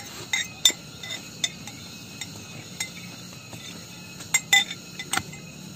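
Spoons clinking against plates: about a dozen short, sharp clinks at irregular intervals, with a small cluster a little over four seconds in.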